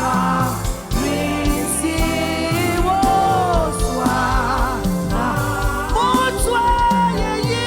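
Gospel worship song: a sung vocal melody over a band with a steady beat.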